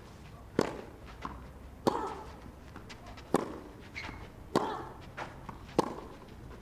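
Tennis rally on a clay court: racket strings striking the ball, five sharp hits about a second and a quarter apart, with fainter ball bounces between them.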